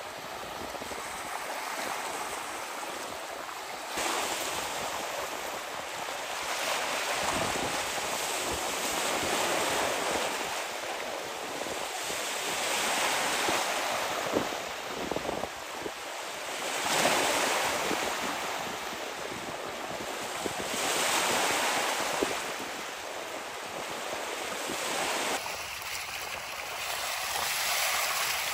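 Waves washing ashore, swelling and falling every few seconds, with wind.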